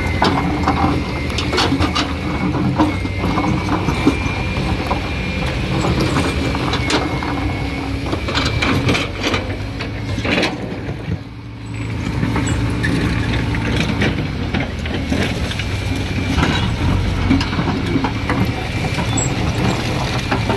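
Heavy diesel machinery running steadily: a Kobelco crawler excavator breaking and scraping through a stone-and-rubble wall, with repeated clattering knocks of rock under the bucket and a backhoe loader's engine. The noise dips briefly midway.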